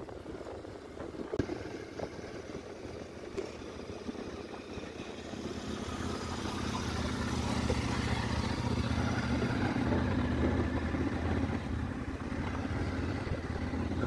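Motorcycle engine running on the move; it grows louder and steadier about halfway through.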